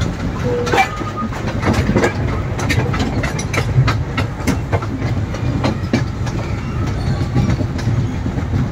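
Amusement-park toy train running along its track, heard from a riding carriage: a steady low rumble with frequent irregular clicks and clanks from the wheels and carriages.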